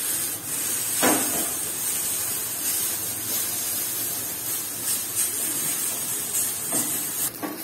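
Boiled noodles sizzling in hot oil in a nonstick frying pan as they are tossed and turned with a wooden spatula, with a knock about a second in.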